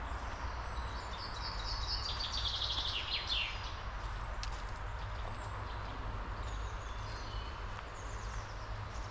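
A songbird sings one phrase about a second in: a quick run of high notes stepping down in pitch for about two and a half seconds. Softer bird calls follow later, over a steady low outdoor rumble.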